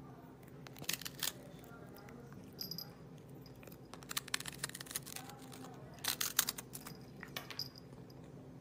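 A cat biting and crunching a dry cracker: small, sharp crunches in irregular clusters, the busiest bursts about four and six seconds in.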